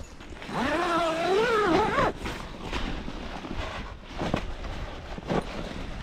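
A dog gives one wavering whine, about a second and a half long, that rises in pitch at its end. Afterwards come scattered crunches and rustles as the tent's canvas door is pushed open.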